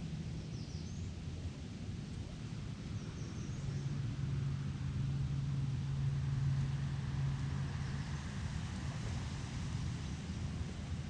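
Low, steady hum of a distant engine that swells in the middle and then fades, over outdoor ambience, with a few faint, short high chirps near the start.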